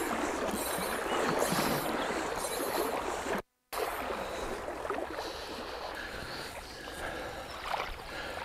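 Choppy river water running over a stony riffle, with splashing around a wading angler's legs. The sound cuts out for a moment about three and a half seconds in.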